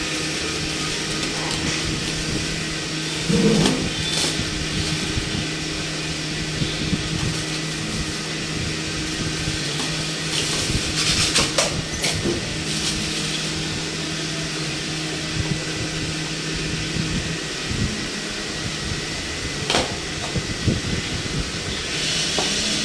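2 HP electric air compressor running steadily, a constant hum with a strong hiss, broken by a few short knocks.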